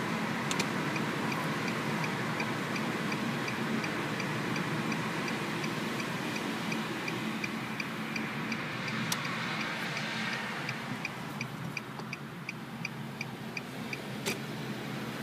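A car's turn-signal indicator clicking steadily, a few clicks a second, over the steady road and engine noise heard inside the cabin, with a few sharper single clicks.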